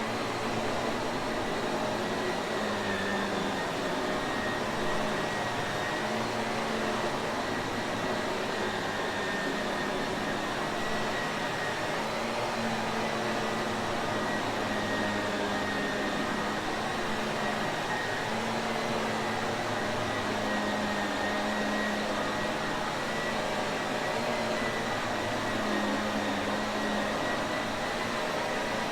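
Shark Navigator upright vacuum cleaner running steadily: an even motor rush with a constant high whine and a low hum that wavers slightly.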